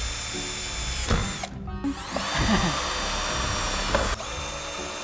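Electric drill/driver running in two runs with a steady motor whine. The first run lasts about a second and a half, and its pitch sags just before it stops. The second starts soon after and lasts a little over two seconds.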